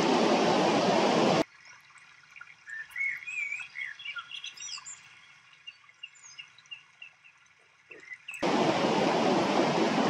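Water rushing over a low river weir, a steady loud noise that cuts off abruptly about a second and a half in. In the quiet that follows, small birds sing short chirping, warbling calls for about seven seconds, then the rushing water cuts back in abruptly near the end.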